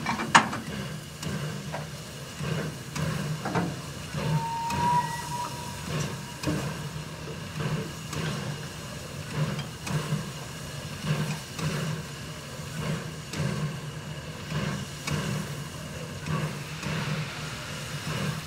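J15 steam locomotive standing in steam: a steady hiss with a low rhythmic pulsing that swells about once a second. A sharp metallic clank comes about a third of a second in, and a brief high tone sounds about four seconds in.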